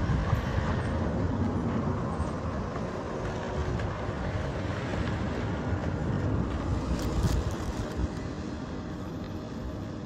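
Outdoor roadside ambience: a continuous low rumble with a few faint clicks, and no speech.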